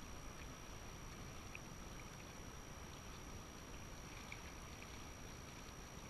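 Faint waterside ambience: a steady low rumble and hiss of wind and small waves against the shore rocks. A few light ticks and a thin steady high tone sit over it.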